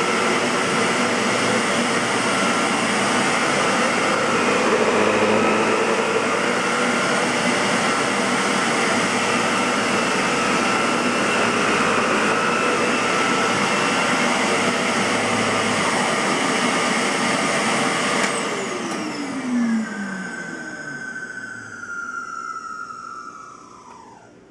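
Aerus Lux 5500 (C152C) Electrolux canister vacuum cleaner running steadily, then switched off about 18 seconds in, its motor whine falling in pitch as it spins down. The motor has a bad bearing, according to the owner.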